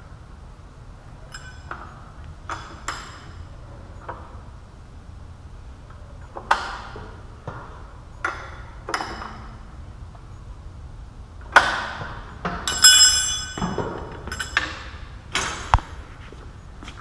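Scattered metallic clinks and knocks, some with a ringing tone, the loudest cluster in the last few seconds, over a low steady hum: the drawbar being worked at the top of a manual knee mill's spindle to draw in a Cat 40 taper tool holder.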